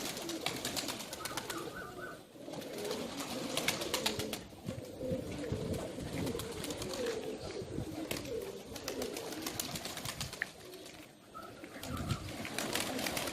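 A flock of domestic Tur pigeons cooing together, a dense continuous murmur of overlapping coos, with frequent sharp clicks and rustles from the birds moving about.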